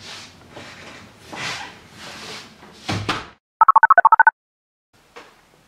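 Footsteps and movement with a door closing with a knock about three seconds in, then a cordless phone's keypad tones: a quick run of about ten short beeps as a number is dialled.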